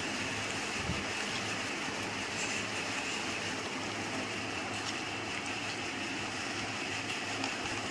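Steady rushing background noise with a faint low hum, unchanging throughout and with no distinct clicks or knocks.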